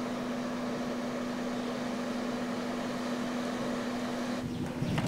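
Steady machine hum: one constant low tone over an even hiss. A brief low rumble rises near the end.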